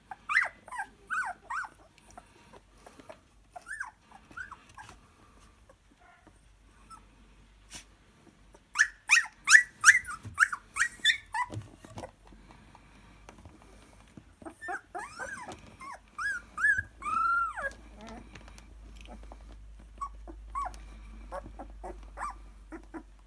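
Siberian husky puppies whimpering and crying in short, high squeaks throughout. A run of loud, rapid yelps comes about nine seconds in, and longer drawn-out whines follow around fifteen to seventeen seconds.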